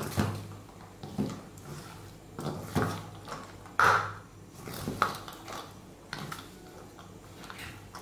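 Spatula stirring a chopped corn salad in a stainless steel mixing bowl, scraping and knocking against the metal on each stroke. The loudest knock, about four seconds in, sets the bowl briefly ringing.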